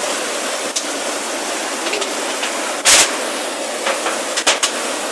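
Steady rush of flooding water and rain, with a few sharp knocks and one louder thump about three seconds in.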